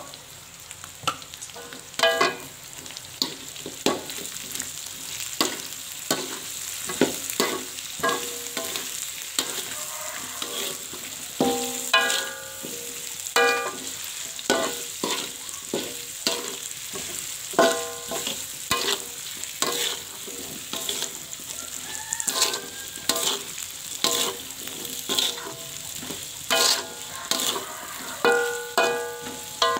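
Metal spatula scraping and striking a wok during stir-frying, with sharp clanks about once a second that leave the wok briefly ringing, over a steady sizzle of hot oil.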